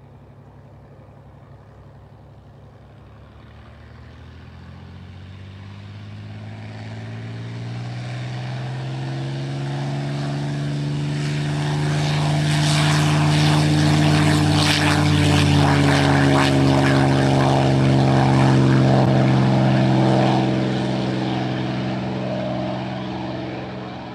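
Propeller airplane's engine drone passing by. It starts faint, grows steadily louder over the first half, then fades away in the last few seconds, its pitch bending gently as it passes.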